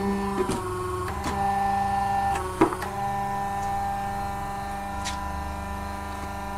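Electric motor of a slipper sole cutting press humming steadily while the press comes down and cuts a sandal sole out of a foam sheet; its hum changes pitch a few times under the load, with a few clicks and a sharper knock about two and a half seconds in.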